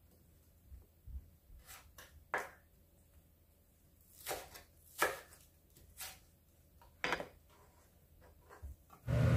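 Chef's knife slicing green onion on a wooden cutting board: a dozen or so soft, irregular knife taps on the board, unevenly spaced. Loud music comes in at the very end.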